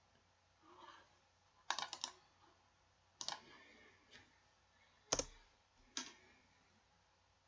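Clicks of a computer mouse and keyboard keys: about six short bursts of clicking, the loudest about five seconds in with a low thump.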